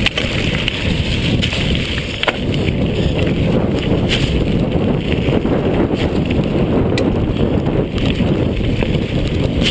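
Mountain bike riding fast downhill over wet gravel, with wind buffeting the action camera's microphone as a loud, steady rumble. Sharp knocks and rattles from the bike over rough ground come every second or two.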